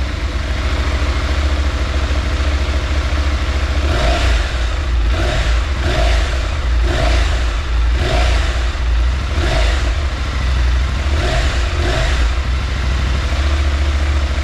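Husqvarna Norden 901's parallel-twin engine idling through its stock slip-on exhaust, just after starting. From about four seconds in until near the end, its sound swells briefly about once a second.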